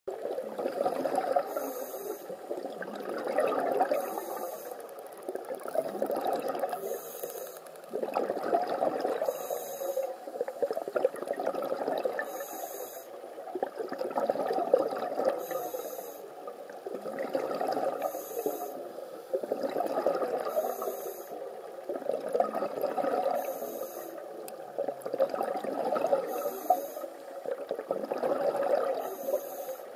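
A scuba diver breathing through a regulator underwater: each cycle a short hiss of inhalation followed by a gurgling rush of exhaled bubbles, repeating about every two and a half to three seconds.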